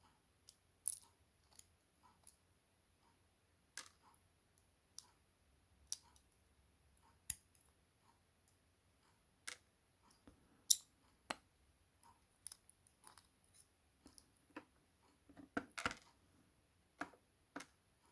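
Irregular small metallic clicks and ticks as the tiny pins are taken out of a gutted five-pin Lockwood 301/63 lock cylinder and set down, with a short flurry of clicks near the end.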